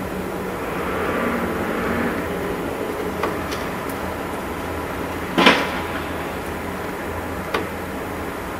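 The unexplained low drone recorded as the Arkhangelsk 'strange sound', a steady deep hum that swells in the first two seconds. A sharp knock comes about five seconds in, with fainter clicks before and after it.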